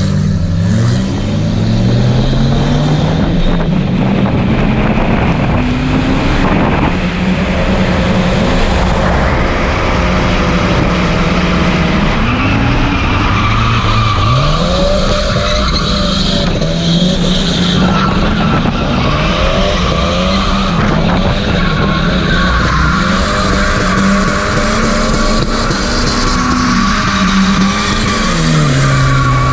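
Two drift cars running in tandem, heard from a camera mounted on the chasing BMW. An engine revs up and falls back over and over, and tyres squeal through the slides.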